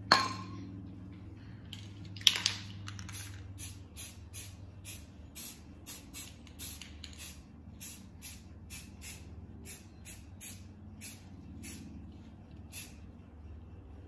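A Rust-Oleum camouflage spray can being shaken, its mixing ball rattling in a steady rhythm of about two clacks a second. Before it, two sharp knocks as cans are handled.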